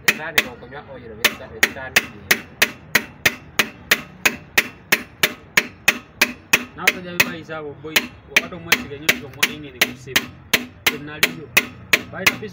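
A hammer tapping a piston through a ring compressor into the cylinder bore of a diesel engine block, during a rebuild. The taps are sharp and quick, about four a second, with a short pause about a second in.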